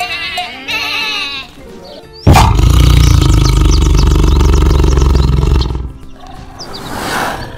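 Sheep bleating twice in the first second and a half, then a tiger giving a loud, long roar of about three and a half seconds, followed by a softer growl near the end.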